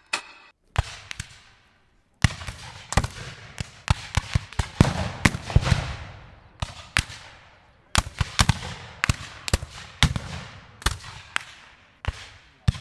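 Fireworks bursting in a rapid, irregular series of sharp bangs, each trailing off into a crackle. After a brief lull, the bangs come thick and fast from about two seconds in.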